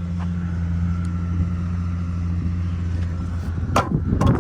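An engine running steadily with a low hum. Near the end come a few sharp, clattering knocks.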